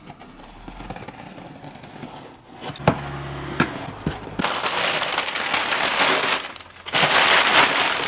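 A parcel being torn open and its packaging crinkled and rustled: soft handling with a couple of sharp clicks at first, then loud, continuous crinkling from about halfway through.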